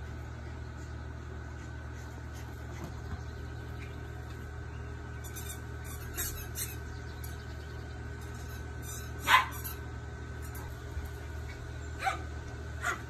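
A papillon and a Pomeranian at play, giving a few short, sharp yips, the loudest about nine seconds in. A steady low hum runs underneath.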